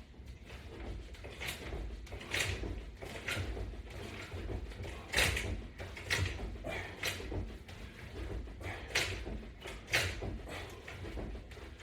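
Forceful breathing of a person exercising with resistance bands: short, sharp exhalations about a second apart in runs of two or three, with brief pauses between, in time with the repetitions.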